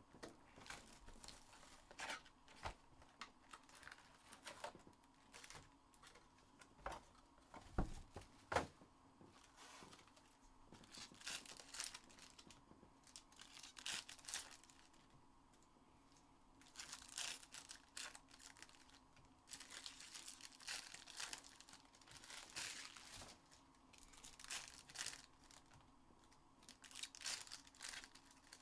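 Foil wrappers of Panini Select basketball hobby packs being torn open and crinkled by hand, in repeated short spells. In the first several seconds there are a few sharp taps and knocks as the box and packs are handled, the loudest about eight seconds in.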